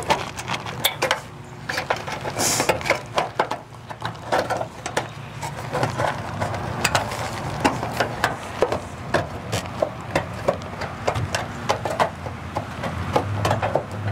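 Hand snips cutting thin painted aluminium trim, a string of irregular clicks and snaps as the blades bite and the sheet flexes.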